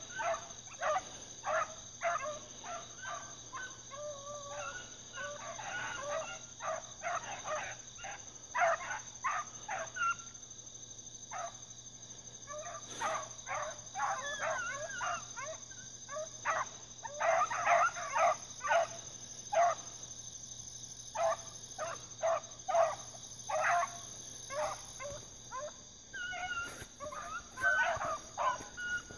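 A pack of hounds, a bluetick coonhound among them, baying on a track: many short, overlapping bawls and chops throughout, loudest about two thirds of the way in, over a steady high insect drone.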